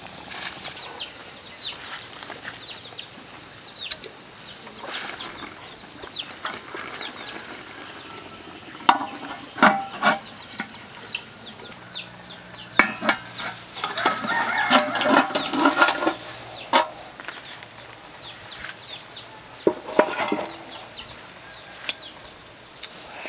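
Chickens clucking, with a steady run of short, high, falling peeps. Several sharp clinks and knocks come in the middle.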